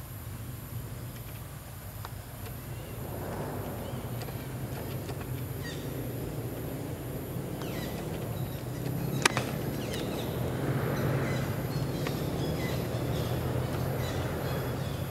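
A low, steady engine hum that grows louder over several seconds and stays up, with a few faint bird chirps and one sharp click about nine seconds in.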